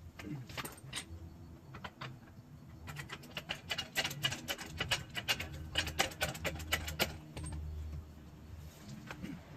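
Irregular run of sharp clicks and light metallic taps from hand-tool work, several a second for about four seconds in the middle, over a low steady hum.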